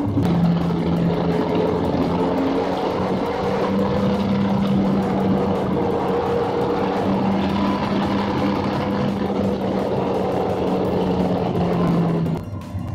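Williams FW14's 3.5-litre Renault V10 Formula 1 engine heard onboard, running at a fairly steady engine speed with a held pitch. It drops away suddenly near the end.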